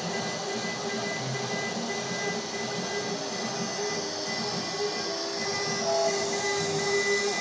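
CNC router at work milling a wooden board: the spindle running with a steady whine over the noise of the cut, and the stepper motors' tones shifting in pitch as the axes move. It gets somewhat louder near the end.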